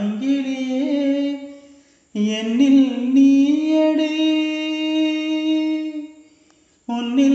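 A solo voice singing long held notes with no accompaniment heard: one note of about two seconds fades out, then after a short break a second note is held for about four seconds and dies away, and a new phrase starts near the end.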